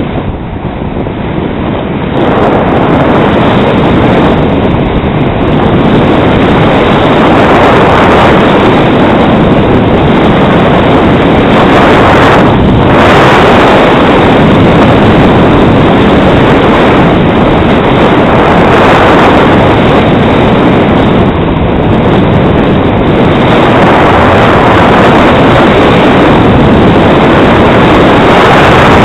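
Heavy wind rush on a skier's camera microphone during a fast downhill ski run, building over the first two seconds and then holding loud and steady.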